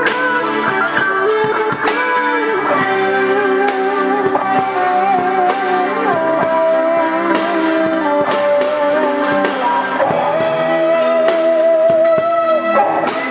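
Guitar ensemble with drums playing: a lead guitar carries the melody in long held notes with vibrato over sustained rhythm-guitar chords, and cymbal strokes tick along regularly.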